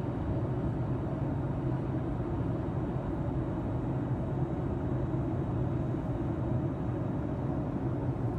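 Steady low rumble of a moving vehicle, even and unbroken.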